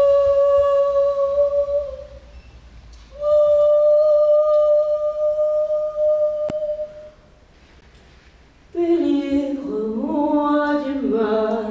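A woman's wordless vocal performance: two long, steady high notes of a few seconds each, then, near the end, a lower wavering vocal line that slides between pitches.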